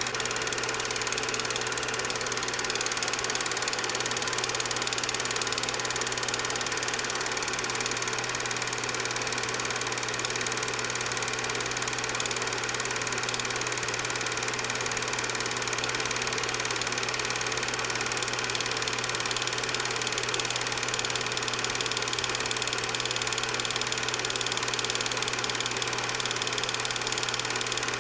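8mm film projector running with a steady mechanical whirr and hum.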